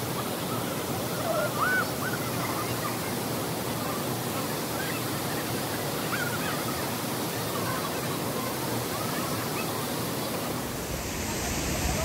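Steady rush of the Krang Suri waterfall and its rocky stream, turning fuller and heavier about eleven seconds in.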